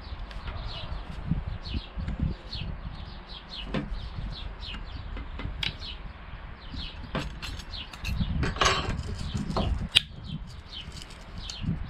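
Small birds chirping over and over in the background, short falling chirps a few times a second. In front, an oscillating multi-tool and its blades are handled on a wooden table: light clicks and knocks, a louder stretch of rattling, and a sharp click near the end.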